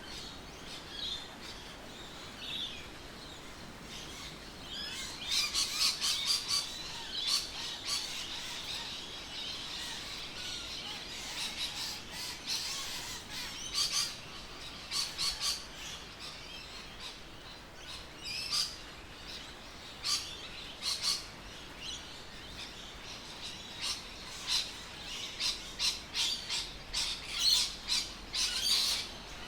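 Birds chirping and calling: many short, high chirps overlapping in a busy chorus.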